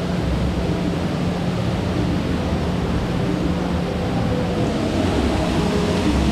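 Steady rush of falling water from a hot-spring pool's waterfall, with a low steady hum underneath.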